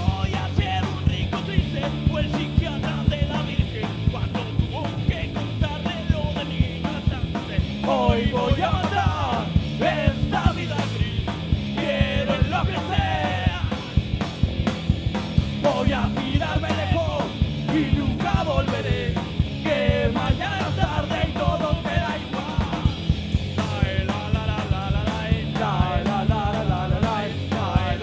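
Punk rock band playing a song live, with a fast, driving drum beat; a singer comes in about eight seconds in and keeps singing over the band.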